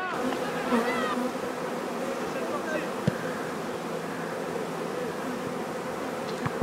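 A dense swarm of flying insects buzzing around the microphone, a steady hum, with two short sharp knocks about three seconds in and near the end.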